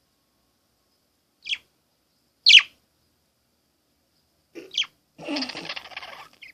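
Small pet bird giving three short, sharp, high chirps, spaced one to two seconds apart. Near the end comes about a second of mixed, unpitched noise.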